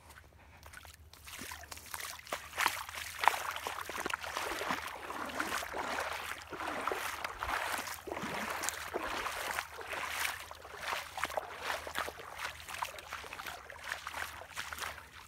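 Splashing and sloshing of feet wading through shallow water. It starts about a second in and goes on as irregular splashes, step after step.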